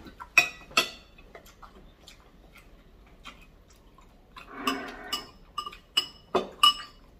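Spoon and fork clinking against a bowl while eating meatball soup: a string of sharp clinks, several ringing briefly, with a short rougher clatter about halfway through.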